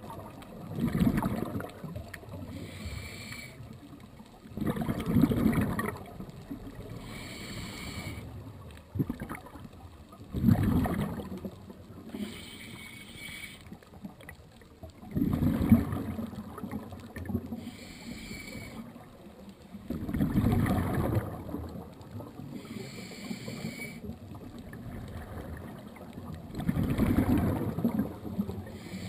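Underwater scuba breathing heard through a GoPro housing: a hiss on each inhale through the regulator, then a burst of exhaled bubbles, repeating about every five seconds. The bubble bursts are the loudest part.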